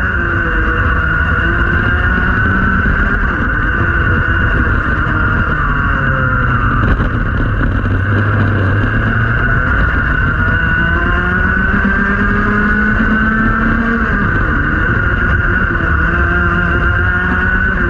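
Rotax Max 125cc two-stroke kart engine at racing revs, heard onboard, around 10,400 rpm. Its pitch falls as the revs drop to about 6,000 rpm through a slow corner about halfway through, then climbs back as the kart accelerates out.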